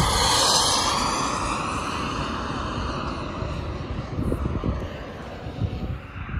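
Turbine-powered radio-controlled model F-104 Starfighter jet making a low, fast pass. It is loudest about half a second in, its sound sweeping in pitch as it goes by, then fades as it flies away.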